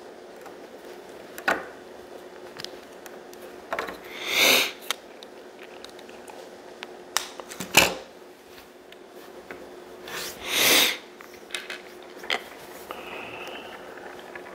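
LEGO plastic pieces clicking and tapping as small wheels are pressed onto a LEGO tractor: a handful of sharp clicks, the loudest about halfway through, over a steady low room hum. Two audible breaths stand out, at about four and about ten seconds in.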